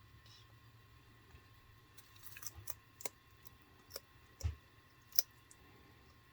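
Bearded dragon chewing feeder insects: a scatter of sharp crunches from about two seconds in, with the loudest two near the end.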